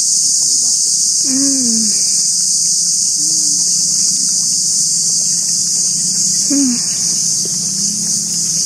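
A chorus of insects drones continuously at a high pitch. A person makes a few short hums, about one and a half, three and six and a half seconds in, while tasting durian.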